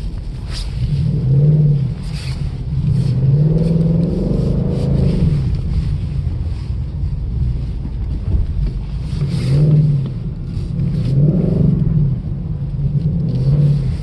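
A 2018 Ford Mustang GT's 5.0-litre V8 revs up and down in about five throttle surges as the rear tyres spin on snow.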